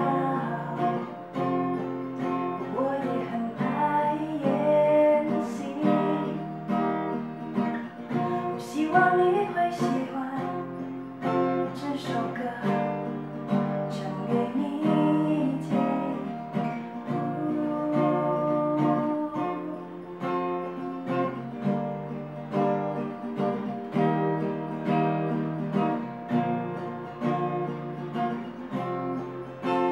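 Acoustic guitar strummed steadily, playing a song accompaniment.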